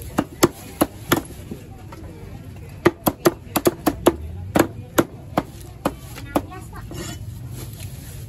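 Meat cleavers chopping raw chicken on thick round wooden chopping blocks: many sharp blows at an irregular pace from two choppers, with a pause of about a second near the start.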